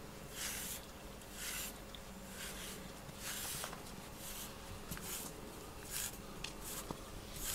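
A brush stroked through a cat's fur, a soft rasp about once a second, each stroke brief.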